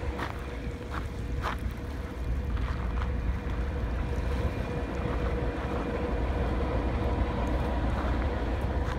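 Wind buffeting the microphone with a steady low rumble, a faint steady hum underneath. A few footsteps crunch on gravel in the first three seconds.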